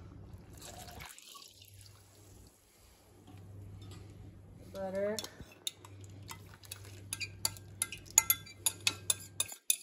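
Milk pouring briefly from a glass measuring cup into a stainless steel mixing bowl. Then, over the last few seconds, a quick run of light clinks and taps of a metal spoon against a glass measuring cup as melted butter is scraped out over the bowl.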